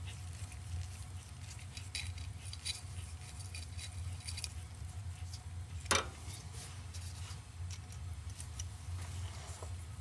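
Hand ratchet and socket turning the small mounting bolts of a transmission range switch: scattered light clicks, with one sharper metallic click about six seconds in, over a steady low hum.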